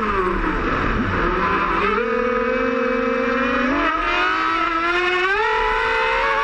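Electric RC speedboat's twin Lehner brushless motors whining, heard from on board: the pitch drops sharply as the throttle is eased right at the start, then climbs back in steps about two, four and five seconds in as power is fed in again.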